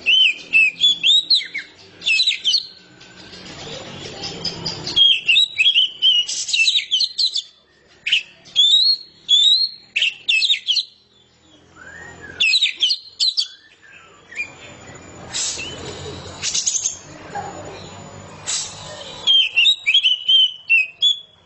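Oriental magpie-robin (kacer) singing in full voice: quick runs of loud whistled notes and trills, delivered in short bursts with brief pauses between them.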